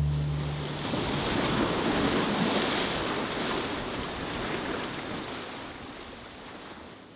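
Surf washing over shoreline rocks, a steady rush of waves that slowly fades out toward the end. The last guitar chord of the music rings out under it in the first second.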